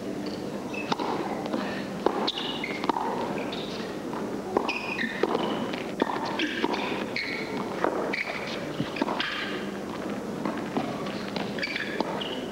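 Tennis rally on an indoor court: rackets striking the ball in a run of quick shots and volleys, with shoes squeaking on the court surface between the hits.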